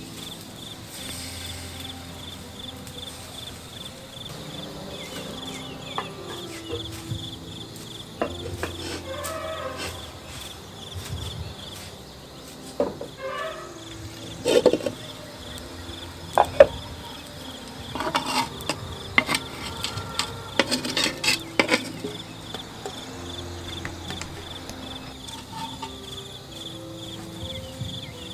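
Crickets chirring in a steady, fast-pulsing high trill, with a cluster of sharp knocks and clinks of kitchen utensils in the middle.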